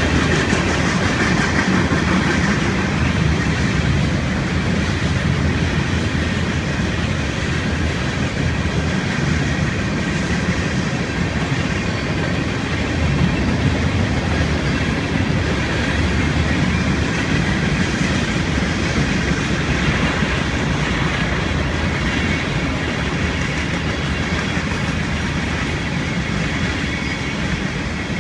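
A train rolling past, its wheels running steadily on the rails for the whole stretch.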